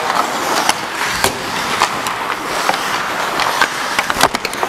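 Ice hockey skates scraping and carving on the ice as a steady hiss, broken by several sharp clacks of sticks and puck, the loudest about four seconds in.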